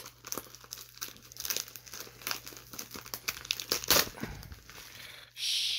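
A plastic mailing package crinkling and crackling as it is handled and pulled open by hand. There is a sharper crackle about four seconds in and a short rasping hiss near the end.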